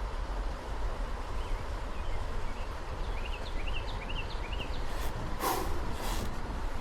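Outdoor river ambience with a steady low rumble, over which a small bird gives a quick series of short rising chirps. Near the end there are two brief hissing noises.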